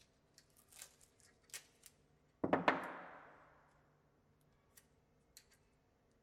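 Masking tape being handled while marking a depth on a flat drill bit: light clicks and taps, then a strip pulled off the roll with a sudden rip about two and a half seconds in that fades over a second or so, followed by a few faint ticks.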